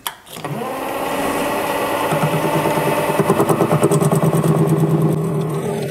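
Mini lathe starting up about half a second in and then running steadily with a pitched motor and gear whine, turning a brass rod in its four-jaw chuck while the end is faced off.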